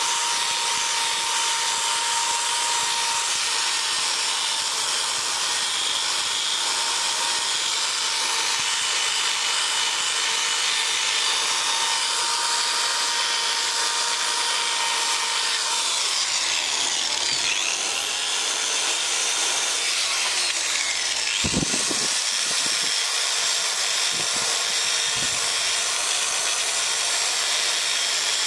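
Power drill spinning a small wire brush against a rusty motorcycle exhaust pipe: a steady high scraping whir as the rust is scrubbed off. The pitch sweeps up and down for a few seconds past the middle, followed by a few light knocks.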